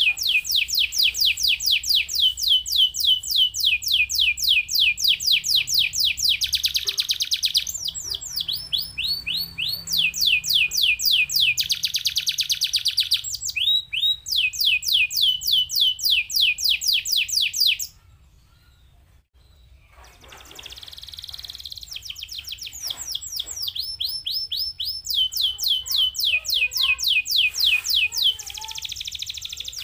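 Domestic canary singing: fast trills of repeated notes that fall in pitch, changing phrase every second or two. The song breaks off for about two seconds just past the middle, then starts again softly and builds back up.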